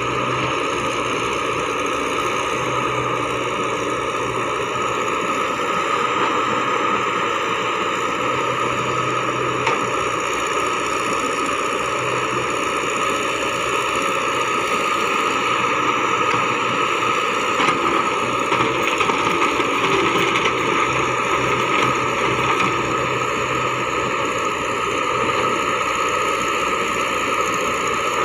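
Caterpillar crawler excavator's diesel engine running steadily under digging work, with a constant high whine over the engine hum. A few knocks and clatters come past the middle.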